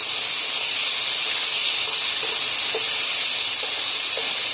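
Onions and freshly added tomatoes frying in hot oil in a pan: a steady sizzle, with a few soft pops in the second half.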